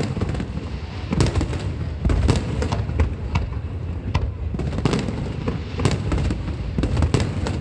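Aerial fireworks bursting in quick succession: sharp bangs about two to three a second over a continuous low rumble.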